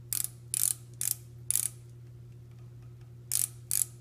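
Ratchet stop of a digital outside micrometer clicking in short rasping bursts, four about half a second apart and then two more near the end, as the spindle is closed onto a turned steel test bar to measure its diameter.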